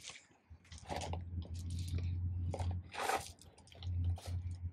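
Foam polishing pad on an orbital polisher being rubbed over a fiberglass boat hull to spread ceramic coating: a few short scuffing swishes over a low steady hum.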